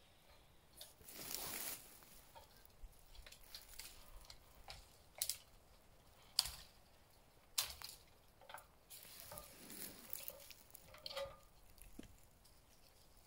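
Faint, scattered knocks and clicks with a few brief rustles, from people handling lumber and moving about while building a wooden hunting stand; the sharpest knocks fall around the middle.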